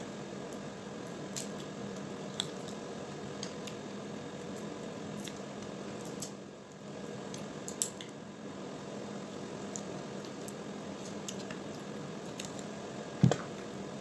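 Crab shell being picked apart by hand and chewed: scattered small cracks and clicks, with wet squishing, over a steady low hum. One louder knock comes about 13 seconds in.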